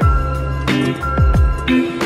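Background music with a steady beat: deep bass-drum hits about every two-thirds of a second over held bass notes and chords.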